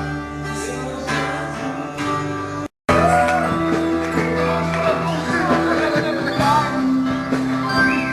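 Worship song with guitar and singing. About three seconds in it drops out for a moment, then comes back louder with a singing voice over the band.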